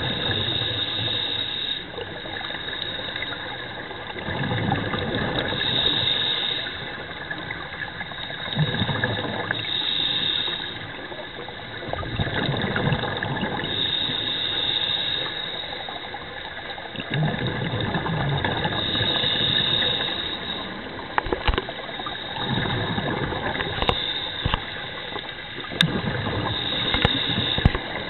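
Scuba diver breathing through a regulator underwater: hissing inhalations alternate with rushing, gurgling bubble exhalations in a slow cycle of about one breath every four to five seconds. A few sharp clicks come near the end.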